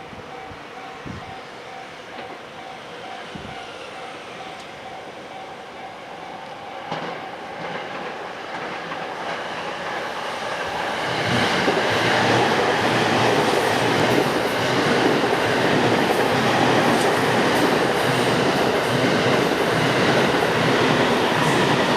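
A JR East E217 series 15-car electric train approaches and runs past over a level crossing. It grows louder over the first ten seconds or so, then holds as a steady loud run of the passing cars with wheels clacking over the rail joints. A repeating ding, the crossing's warning bell, is heard in the first seven seconds or so.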